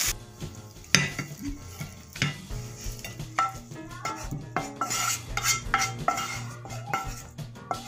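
A spatula scraping and knocking against a frying pan as fried chicken pieces are tipped out onto a plate: a run of irregular scrapes and clatters, several of them ringing briefly.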